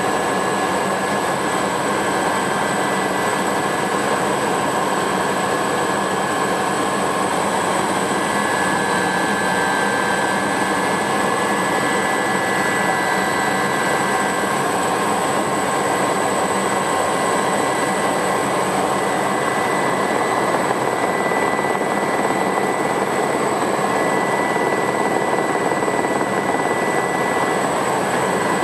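Aerospatiale Alouette II SA318C helicopter in cruise flight, heard from inside the cabin: a steady high whine from its Turbomeca Astazou turboshaft over a dense, even rush of rotor and airflow noise.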